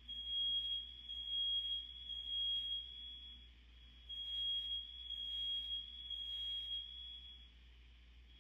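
Fire alarm sounding during a test: a high-pitched electronic tone pulsing about once a second, with a short break about three and a half seconds in.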